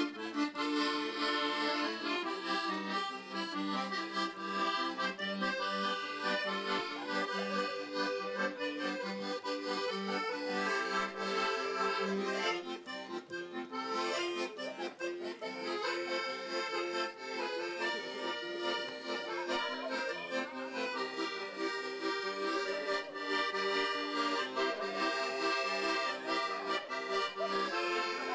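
Music.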